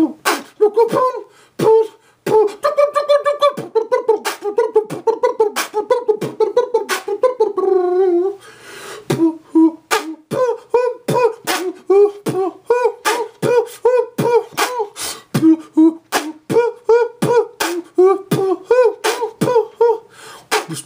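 A man beatboxing: sharp mouth-made kick and snare hits in a quick steady beat, about three to four a second, with a hummed tune sounding between the hits. A short breathy hiss breaks the pattern about eight seconds in.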